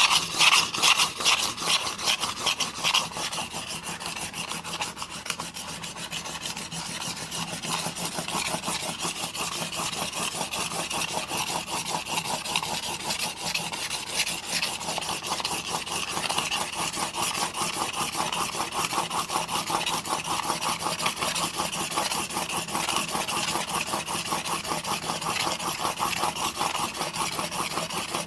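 A steel single-bevel broadhead blade, held in a roller sharpening guide, stroked rapidly back and forth on an 800-grit diamond plate: a steady, rhythmic rasping rub, a little louder for the first few seconds, as the edge is worked up to a burr.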